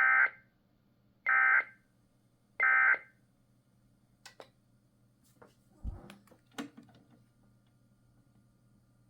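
Emergency Alert System end-of-message tones from a radio broadcast: three short bursts of screechy digital data about a second apart, marking the end of the test alert. After them come a few faint clicks and a soft thump over a low steady hum.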